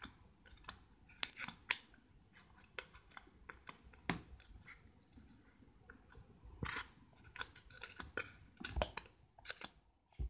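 Homemade slime being squeezed and poked with fingers in a small container, giving irregular sticky clicks and pops.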